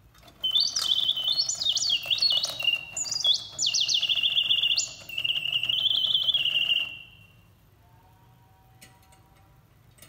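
Reuge two-bird singing automaton's mechanical birdsong, whistled by its bellows-driven piston whistle: rapid chirps and warbling trills gliding up and down, high-pitched, for about six seconds, ending in a falling note. A faint click follows near the end.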